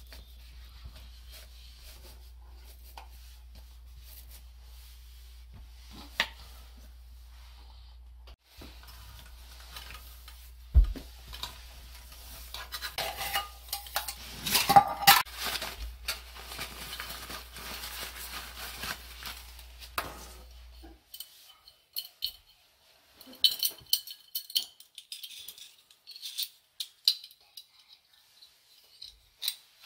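Metal camp cookware clattering as a pot is handled and unpacked from its bag, then sharp metallic clicks and clinks as a folding canister gas stove's pot supports are opened out.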